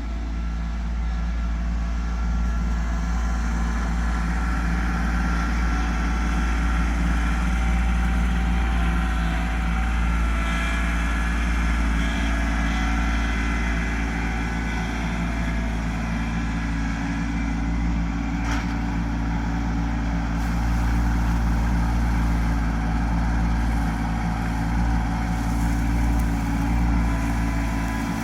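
Kubota LX2610 compact tractor's three-cylinder diesel engine running steadily, with one sharp click about two-thirds of the way through.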